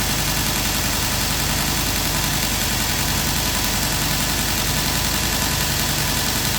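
Grizzly 2x42 belt grinder running steadily with an even hiss, a lopper blade being sharpened on the slack part of the belt.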